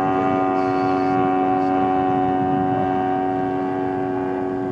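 DLE 55 single-cylinder two-stroke gasoline engine of a large-scale RC Tiger Moth biplane in flight, running at a steady throttle with an even drone. It slowly fades as the plane moves away.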